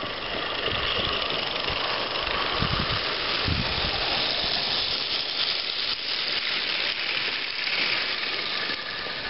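Steady hiss of steam from a live-steam 16mm scale model locomotive, with a few low thumps about three seconds in.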